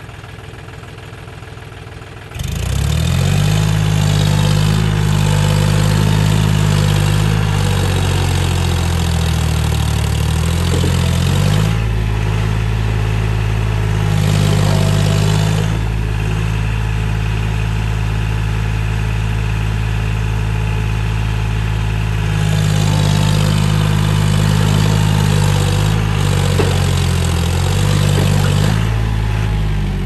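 John Deere 5045D tractor's three-cylinder diesel engine idling, then revved hard about two and a half seconds in and held at high speed, its pitch shifting a few times. It is straining to pull the brick-laden trolley out of deep mud.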